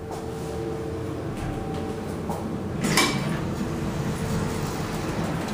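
Elevator car doors of a Mowrey hydraulic elevator opening on arrival: a steady hum from the door operator with one clunk about three seconds in.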